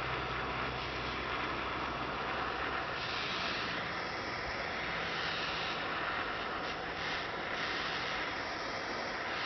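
Small hand-held propane torch burning with a steady hissing flame, heating the lead-free body solder and panel seam.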